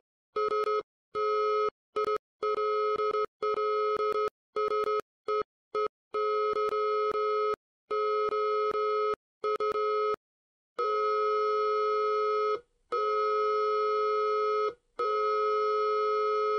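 Morse code keyed on a buzzy electronic tone: a run of short and long beeps, ending in three long tones. The message spells 'I still see you'.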